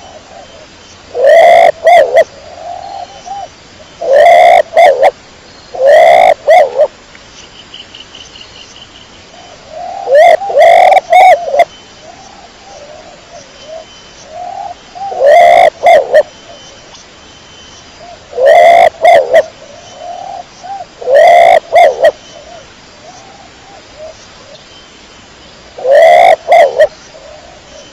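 Domestic pigeon cooing: a loud coo phrase every few seconds, about eight in the stretch, with softer cooing between them.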